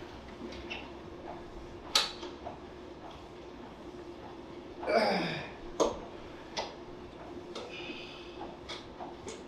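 Gym equipment clicking and knocking: scattered sharp metal knocks over a steady low hum. The loudest knock comes about two seconds in, and a short falling sound comes about halfway through.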